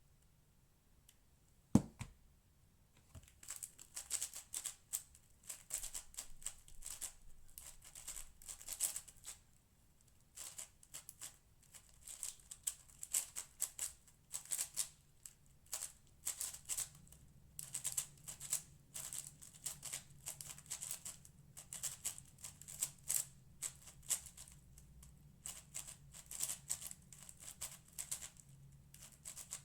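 A 6x6 speedcube being turned rapidly by hand: a dense, irregular run of plastic clicks and rattles from its layers. A single sharp knock sounds about two seconds in, before the turning starts.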